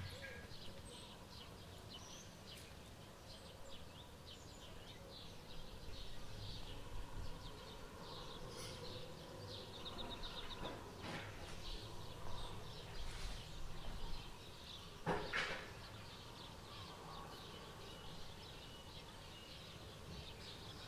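Small kittens' claws ticking and scratching on a laminate floor and a wicker basket as they creep about, many light quick ticks that come and go, with a couple of louder knocks about 11 and 15 seconds in.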